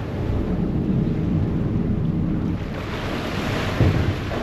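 Harbour ferry's engine and propeller wash churning the water as it pulls away from the wharf, a low rumble under a steady rush of water, with wind buffeting the microphone. A louder low thump of wind comes near the end.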